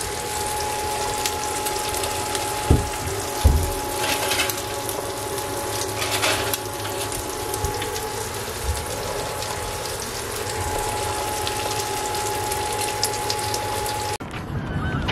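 A pan of nuts heating on a portable induction cooktop: a steady hiss of cooking with a steady whine under it. Two sharp knocks come about three seconds in, and the sound stops abruptly near the end.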